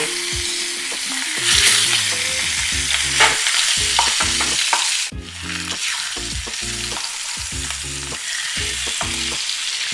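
Fish steaks shallow-frying in hot oil in a pan: a steady sizzle, with short scrapes and knocks of a spatula against the pan as pieces are laid in and turned. The sizzle dips briefly about five seconds in.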